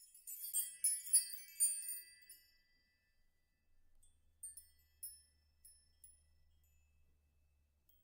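High tinkling chimes: a quick flurry of bell-like notes in the first two seconds, then a few sparse single chimes.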